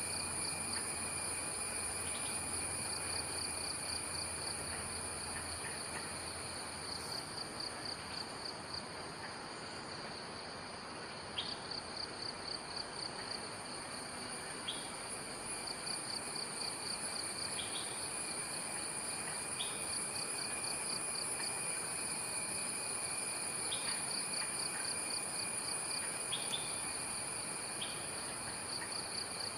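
Steady chorus of forest insects trilling at several pitches, one trill pulsing rapidly. From about a third of the way in, a short chirp rises above it every two to three seconds.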